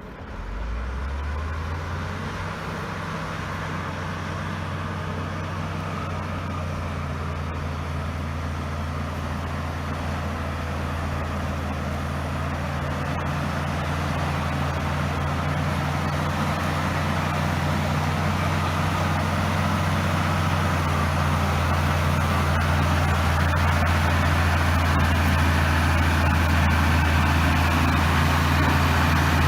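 LiuGong B160C crawler bulldozer's diesel engine running at a steady speed, a low hum that grows gradually louder.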